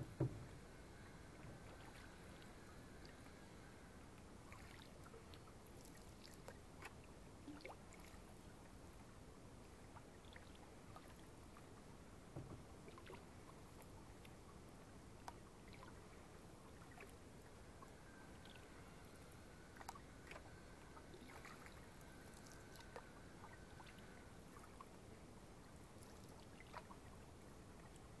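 Quiet canoe paddling: faint drips and small splashes of paddles in calm water, with scattered light clicks and a slightly louder knock just after the start, over a low steady hiss.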